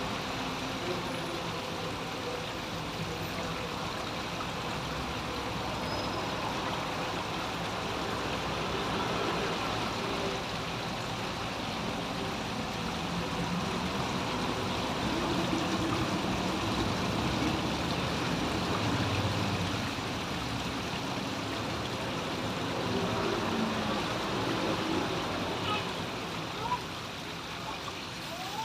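Running water at a grotto, flowing steadily, over a low background hum.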